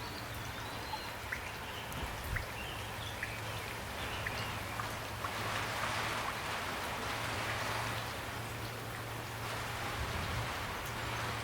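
Steady rain falling, an even hiss of drops with a low hum beneath. A few short high chirps come in the first few seconds.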